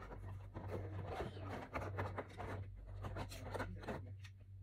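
Toy packaging rustling, crinkling and scraping as an action figure is pulled out of its cardboard box, in a quick, irregular run of rubs and crackles over a low steady hum.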